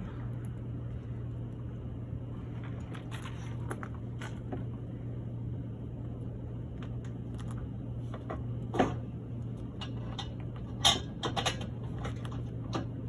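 Scattered metallic clinks and knocks of exhaust parts and bolts being fitted under a car, the two sharpest about nine and eleven seconds in, over a steady low hum.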